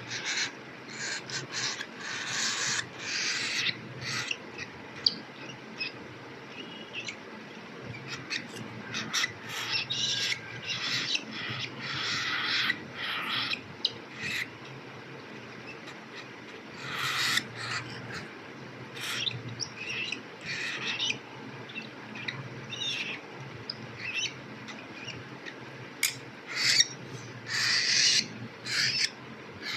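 Baby cockatiel's raspy food-begging calls in many short, irregular bursts while it is spoon-fed, over a steady low hum.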